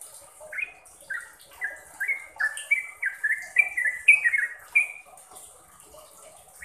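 Yellow-vented bulbul singing a fast run of short notes that bend up and down in pitch, about three or four a second, starting about half a second in, loudest near the middle and stopping about five seconds in.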